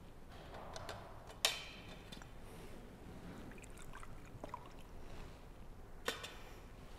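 Metal communion vessels clinking on the altar: two sharp clinks with a brief metallic ring, about a second and a half in and again near the end, with fainter handling taps between, as the chalice and ciborium are purified and put away after Communion.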